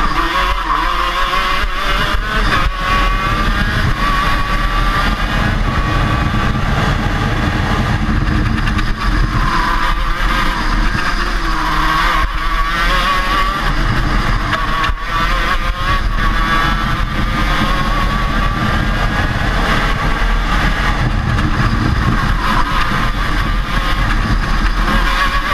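KZ-class 125cc two-stroke shifter kart engine at racing speed, its pitch climbing and falling again and again through acceleration, braking and gear changes.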